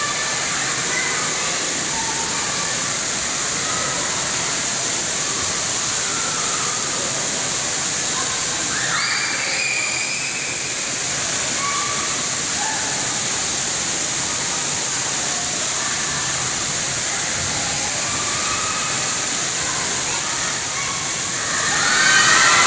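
Steady rush and hiss of water spraying and splashing in an indoor splash-pad play area, with children's calls scattered over it. Near the end it gets louder, with high-pitched sounds rising over the water.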